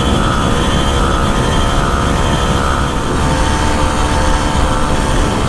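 The small 49cc engine of a Motoped Survival Bike motorized bicycle running at a steady cruising speed, with wind rushing over the handlebar-mounted microphone.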